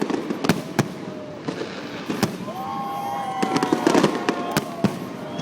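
Aerial fireworks going off: irregular sharp bangs, some single and some in quick clusters, over a continuous crackling haze. A drawn-out wavering tone runs for about two seconds from around halfway in.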